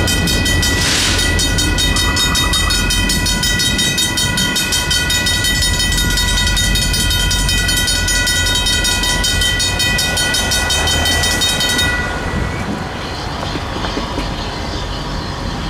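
Griswold mechanical crossing bells ringing in rapid, even strokes, over the low rumble of a freight train. The bells cut off suddenly about twelve seconds in as the crossing deactivates, leaving quieter street traffic.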